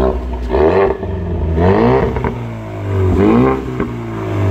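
2019 Ford Mustang EcoBoost's turbocharged 2.3-litre four-cylinder heard through its active valve exhaust in sport mode, revved three times, each rev rising and falling back, with a little pop to it.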